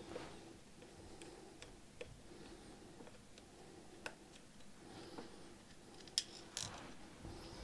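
Faint, scattered clicks and ticks of a hex screwdriver working screws out of the metal chassis plate of an RC car, with a few sharper clicks near the end. A low steady hum runs underneath.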